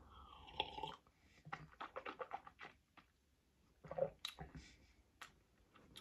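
Faint sipping and swallowing of a berry punch sports drink from a plastic bottle, followed by a run of small wet mouth clicks and smacks as it is tasted.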